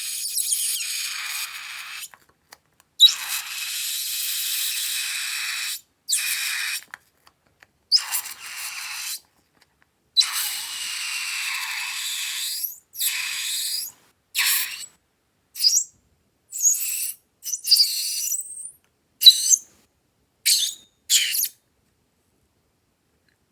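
Hands-on slime-making sounds with balloons: several long hissing stretches of one to three seconds, then a run of short squeaky bursts with gliding pitch.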